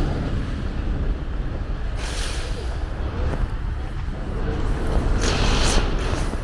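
Street traffic: a steady low rumble with the tyre whoosh of vehicles passing, swelling about two seconds in and again near the end.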